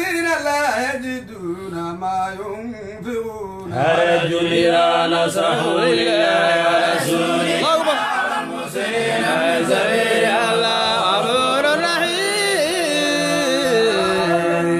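Men chanting Quran verses together in melodic communal recitation (Somali subac). A quieter single line at first, then more voices join louder about four seconds in, with long held notes.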